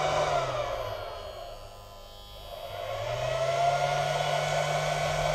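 Electric whir from an MPPT solar charge controller while solar charging current flows in, about 14 amps. The tone is steady, then sags in pitch and level about a second in and rises back by about three seconds.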